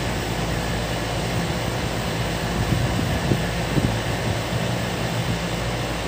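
Outdoor unit of a 5-ton ductable air conditioner running during R22 gas charging: a steady low hum from the compressor under the rush of the condenser fan.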